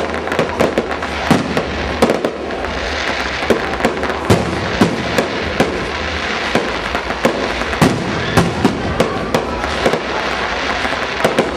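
Aerial fireworks display: shells bursting with sharp bangs in quick, irregular succession. Between the bangs there are stretches of dense hiss, about three seconds in and again near the end.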